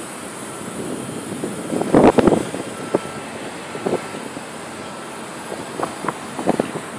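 Steady airfield background noise, broken by short clusters of knocks and rustles about two seconds in and again near the end.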